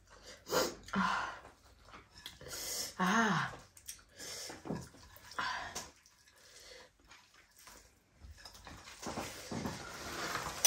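A woman's breathy gasps and exhalations while eating, with one short voiced exclamation about three seconds in.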